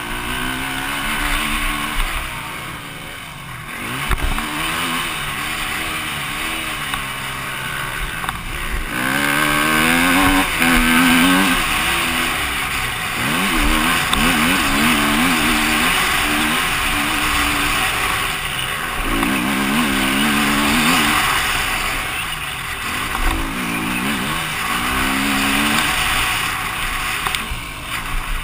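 KTM EXC-F 250 single-cylinder four-stroke engine revving hard, its pitch climbing and dropping again and again while ridden on a dirt track, with wind noise over the microphone.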